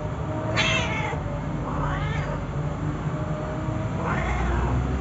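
Cats yowling during mating: three drawn-out cries, the later two rising and falling in pitch, over a steady low hum.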